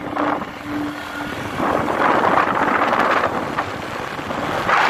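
Wind rushing over the microphone of a moving motorbike, with the bike running underneath. A steady hum comes and goes in short pulses during the first second or so.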